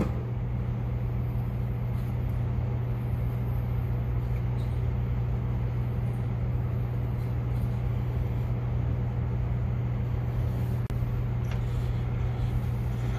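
A steady low background hum, even in level throughout.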